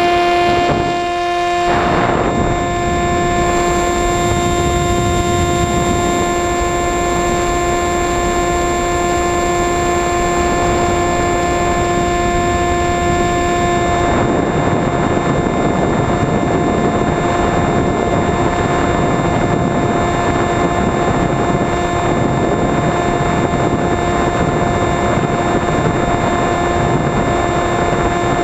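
Onboard sound of an electric FPV RC plane under power: a steady droning tone from its motor and propeller over rushing wind noise. The tone drops out for about a second near the start and comes back. About halfway its higher notes fade and the wind noise grows louder.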